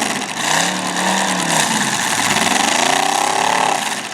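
Demolition derby car engine revved up and back down twice, its pitch climbing and falling each time, over a steady din of other running engines.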